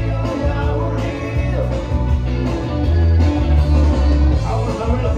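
Loud dance music with singing and a heavy bass line, played over a DJ sound system at a party.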